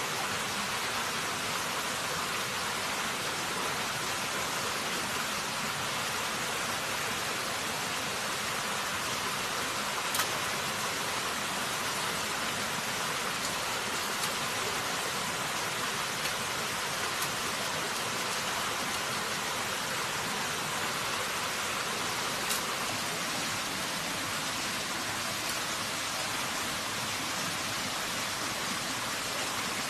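Steady rushing of a shallow stream running over rocks. A few faint clicks of bamboo splints being handled are heard over it.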